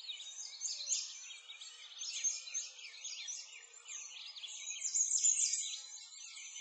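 Many birds chirping and singing at once: a dense, unbroken chorus of quick high chirps.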